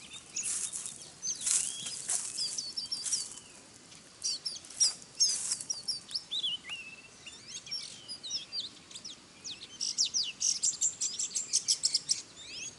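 Small birds chirping, with many short high calls that glide up and down and a dense run of quick chirps near the end. Through them come a few brief scuffling bursts of wing flapping from two jungle fowl hens fighting.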